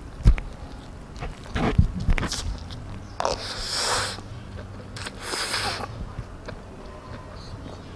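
Close-miked eating: a few soft mouth clicks and chewing knocks, then instant noodles slurped in twice, each a hissing suck of air lasting about a second.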